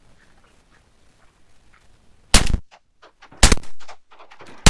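Three shotgun shots at ducks: two about a second apart past the middle, and a third near the end, each loud and sharp with a short echo.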